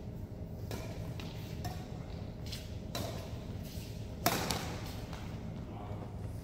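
Badminton rally: rackets striking the shuttlecock in a string of short sharp hits, the loudest about four seconds in, each echoing briefly in the large hall.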